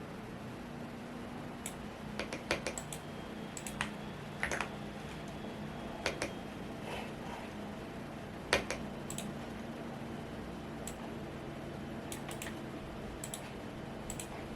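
Scattered, occasional key presses on a Womier S-K71 mechanical keyboard, single clicks and short clusters rather than continuous typing, over a steady fan hum.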